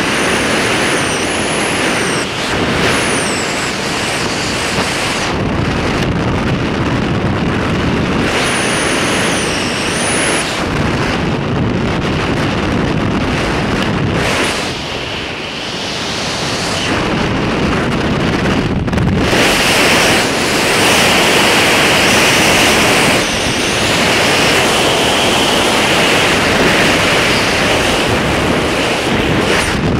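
Wind rushing over a helmet camera's microphone during a descent under an open parachute canopy: a loud, steady roar of air that grows somewhat louder after the middle.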